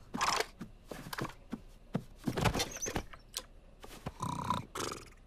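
Cartoon sound effects: a run of small irregular clicks and soft knocks, with a few short rustling noises in between.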